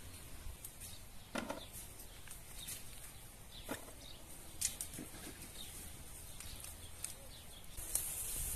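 Leaves rustling and twigs snapping as green plums are picked by hand from a tree branch, with scattered light clicks; the rustling grows louder and closer near the end.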